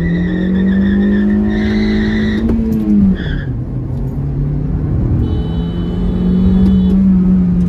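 Honda Civic's 1.8-litre four-cylinder petrol engine revving hard under full acceleration, heard inside the cabin. The revs climb for about three seconds, fall back sharply, then climb again.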